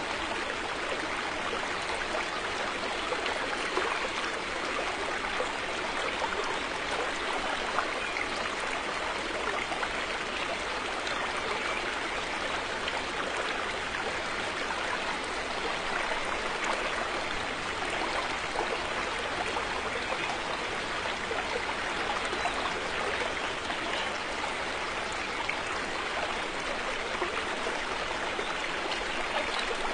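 River water flowing: a steady, even rushing and babbling of running water, with no pauses.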